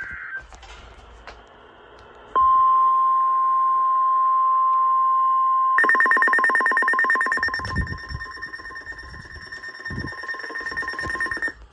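NOAA Weather Radio warning alarm tone, a steady single-pitch tone near 1050 Hz, starting about two and a half seconds in. Around six seconds in it turns rough and rapidly pulsing, with a higher overtone, and fades gradually toward the end.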